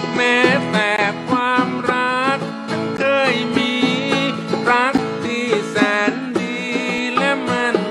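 Band music with strummed and plucked guitars in a country-folk style, under a lead melody line that slides and wavers in pitch.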